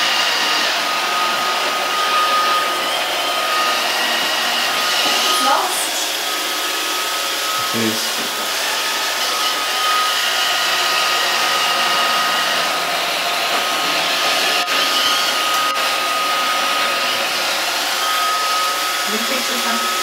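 iRobot Roomba robot vacuum running on a tiled floor: a steady whir of its vacuum motor and brushes with a thin, steady high whine over it. A brief rising sound comes about five and a half seconds in, and a short soft knock near eight seconds.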